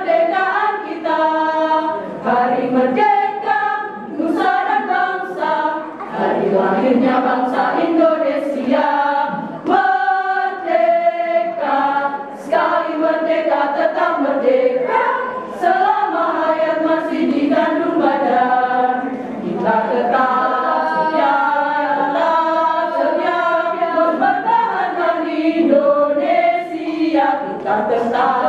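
Women's choir singing a cappella, phrase after phrase, with short breaks between phrases.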